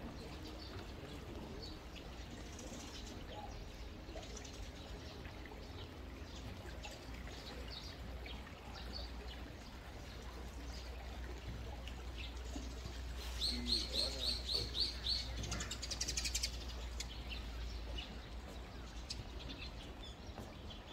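Small bird chirping over steady outdoor background noise; about two-thirds through, a run of about seven quick high notes, followed by a short rattling trill.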